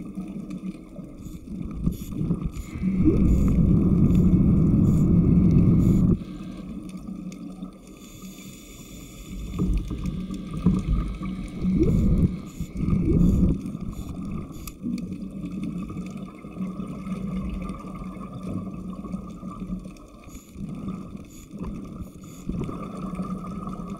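Underwater recording of a diver propulsion scooter's motor, a steady whine on one pitch. Over it come loud low bubbling rumbles from exhaled regulator bubbles: a long one about 3 to 6 seconds in that cuts off abruptly, and more around 10 to 13 seconds in.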